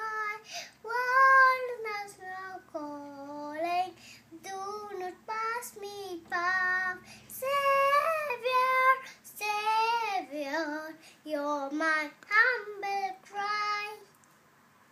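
A young girl singing a hymn solo, without accompaniment, in long sung phrases; her voice stops about a second before the end.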